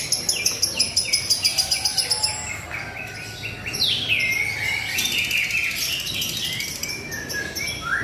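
Caged lovebird chirping. It gives a fast run of high, clipped notes, about six a second for the first two seconds, then a looser, uneven chatter with a long falling note about four seconds in.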